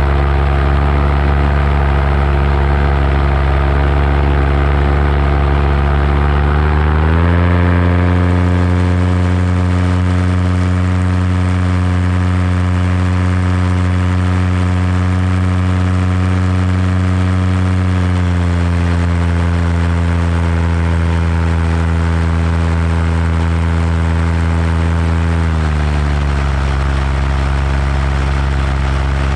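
Paramotor engine and propeller running steadily in flight. About seven seconds in the throttle opens and the pitch rises; it eases a little around the middle and drops back to the lower setting near the end.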